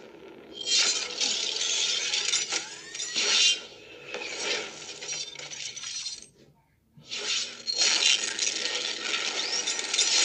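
Sound effects of an animated logo intro: metallic clanks and clicks with crashing, glass-like shattering noise, broken by a brief silence about two-thirds of the way through.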